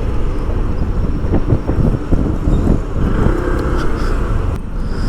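Road traffic noise: vehicle engines and tyres, a loud, steady rumble.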